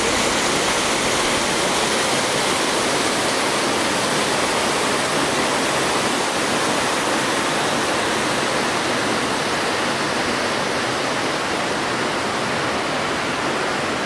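Waterfall water cascading over rock ledges: a steady rushing noise, its high hiss easing a little near the end.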